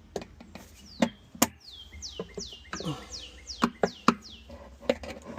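Sharp plastic clicks and knocks from work on the washer parts. About a second in, a bird gives a quick run of about eight chirps, each falling steeply in pitch.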